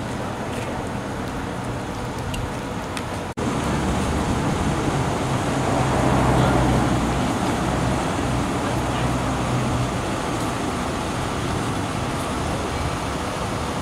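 Steady traffic rumble with a low engine hum, growing louder about six seconds in as a vehicle passes. A brief dropout a little over three seconds in.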